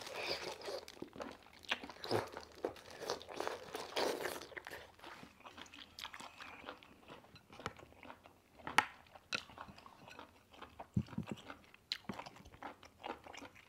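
Close-up chewing of boiled octopus tentacle: wet, crunchy bites and mouth clicks of firm, chewy flesh, busiest in the first four seconds and then sparser.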